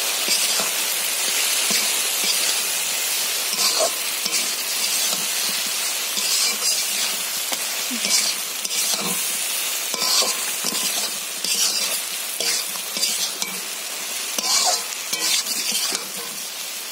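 Jujubes (kul) sizzling in hot oil in a wok with a steady frying hiss. A spatula stirs them, scraping against the pan about every second or so.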